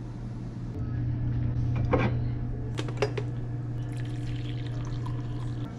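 Coffee poured from a glass drip-coffee carafe into a ceramic mug, with two sharp clinks about two and three seconds in, over a steady low hum.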